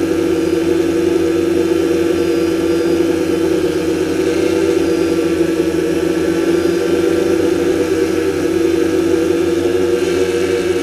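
DJI Phantom quadcopter's motors and propellers running, heard from the camera on the drone: a loud, steady whine with a slight waver in pitch.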